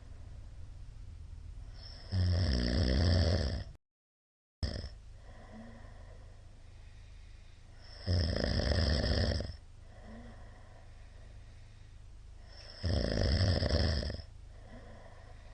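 A middle-aged man snoring loudly in his sleep: three long snores about five seconds apart, with quieter breathing between them. The sound drops out completely for under a second just after the first snore.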